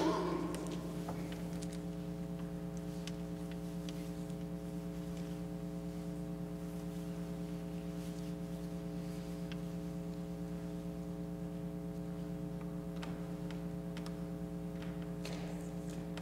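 Steady electrical mains hum, an unchanging buzz of several stacked tones, with one brief knock right at the start.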